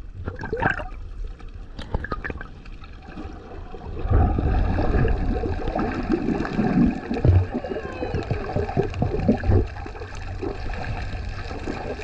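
Underwater water sound picked up by a submerged camera: muffled gurgling and bubbling with scattered faint clicks, turning louder with a low, churning rumble and irregular thumps from about four seconds in.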